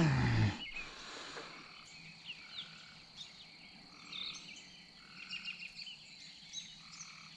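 Faint frogs croaking from the pond, a short call repeated about every second or so.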